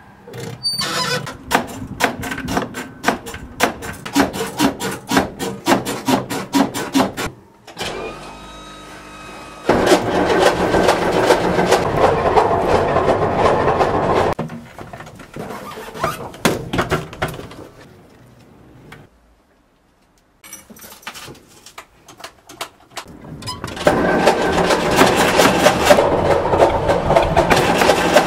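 Skoda RTO 706 bus's diesel engine being cranked over and over by its starter in long tries separated by short pauses. It makes a rhythmic chugging, with louder coughing stretches that push smoke from the exhaust, but it does not catch and run: a hard start on an old, neglected engine.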